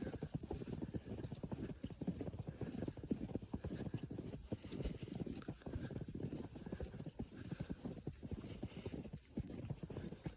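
Footsteps crunching in fresh snow: a steady walking rhythm of soft crunches.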